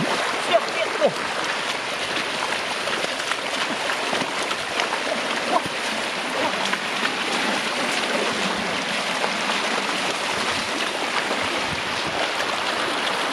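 Floodwater rushing steadily, with a few brief splashes in the first seconds.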